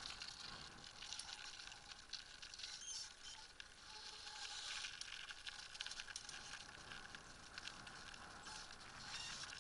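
Small land yacht rolling over sand-strewn pavement: a steady, faint gritty hiss full of small irregular crackles from its wheels on the grit.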